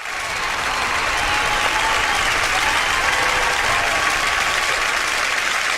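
Sitcom studio audience applauding, a dense, steady clapping that starts abruptly.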